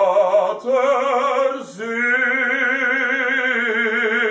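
A male voice sings an operatic phrase in German with strong vibrato: a short sung word, "Vater", then a long held note from about two seconds in.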